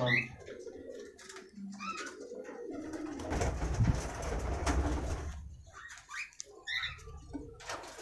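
Cockatiels in a wire-mesh aviary making repeated short chirps and calls, with a low rumble from about three to five seconds in.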